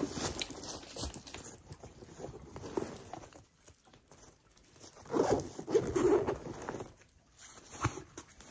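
Irregular rustling and scraping of camping gear being handled while unpacking, loudest in a cluster a little past halfway.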